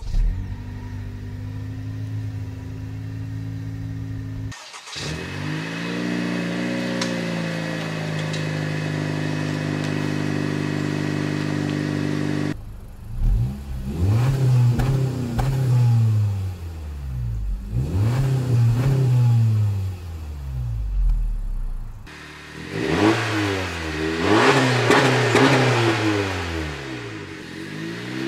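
Honda Civic Sport hatchback's 1.5-litre turbocharged four-cylinder on its stock exhaust, cold-started: it catches at once and holds a steady fast idle. Then comes a series of free revs, each rising and falling in pitch, three in a row and then a quicker, louder set near the end.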